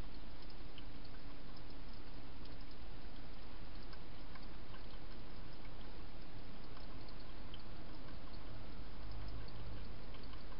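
Steady, even hiss with faint scattered ticks and no distinct event.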